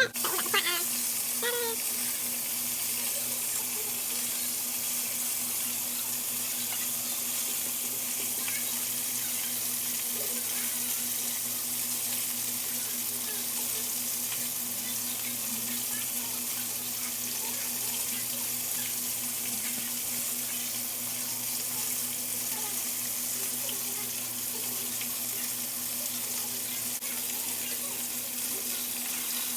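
Food frying in hot oil in a pan: a steady hissing sizzle that starts abruptly and holds even, with no stirring or clatter standing out.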